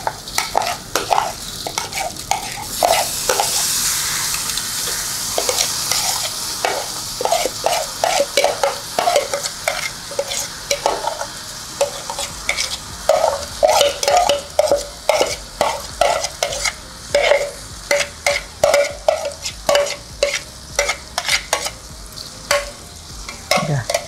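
Raw rice being stir-fried with garlic in hot oil: a spatula scrapes and turns it in the pan in repeated strokes, over a sizzle that is strongest a few seconds in.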